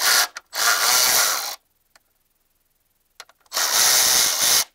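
Cordless electric ratchet spinning bolts out of an engine's cylinder head in three bursts: a short one, then two of about a second each.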